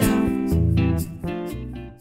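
Background music with strummed guitar chords, fading out near the end.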